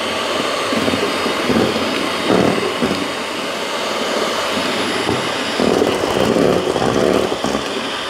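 Kambrook hand-held electric mixer running, its beaters whisking egg whites in a stainless steel bowl as sugar and flour are fed in. The motor is starting to struggle as the mix gets thick.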